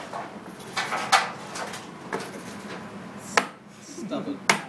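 A handful of sharp knocks and clatters as dishes and utensils are set down and moved on a wooden table, over low room noise.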